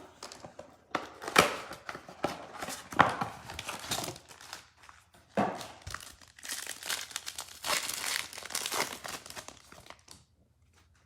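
Panini Prizm Draft Picks blaster box being opened: cardboard and card-pack wrappers torn and crinkled in a run of irregular rustles, dying away near the end.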